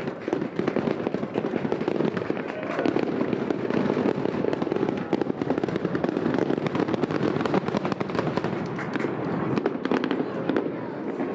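Aerial fireworks display: a dense, continuous run of rapid pops and crackles from shells and crackling stars, thinning slightly near the end.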